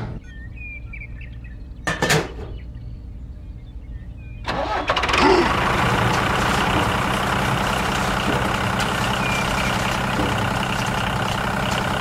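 A click, and a sharper knock about two seconds in, then a tractor engine starts about four and a half seconds in and keeps running steadily.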